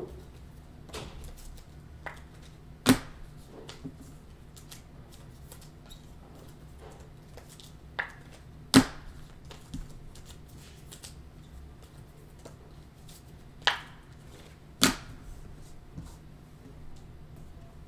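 Clear acetate Clearly Donruss trading cards and packs handled on a tabletop: scattered light ticks and shuffling, with four sharp knocks as cards or a stack are set down, two of them close together near the end. A faint low hum runs underneath.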